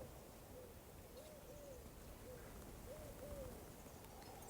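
Faint, soft hooting bird calls: short single and paired notes repeated every second or so.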